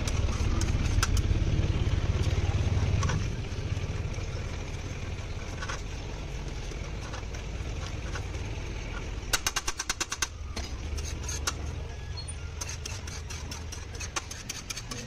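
Metal spatula scraping and tapping on a large flat griddle as a masala mixture is mashed, with a quick run of rapid taps a little over nine seconds in. A low vehicle engine rumble fills the first three seconds.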